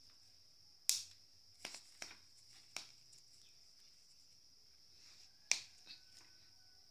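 Maize cobs roasting on a wire grill over glowing charcoal, with about five sharp crackling snaps, the loudest about a second in and again near the end. A steady high-pitched hum runs underneath.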